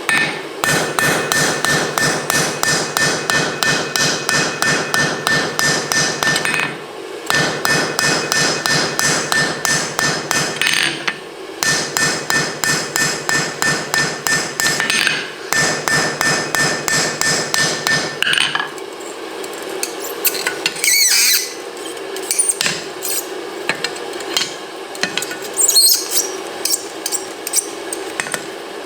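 Blacksmith's hammer striking steel on an anvil in rapid, steady blows, about four a second, with a ringing tone, in several runs broken by short pauses. After about eighteen seconds the hammering stops and only scattered lighter clinks and knocks follow.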